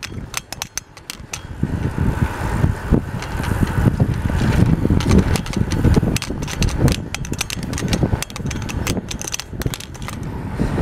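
Wind and road noise of riding along at speed, a low rumble with many sharp clicks and rattles; it gets louder about two seconds in.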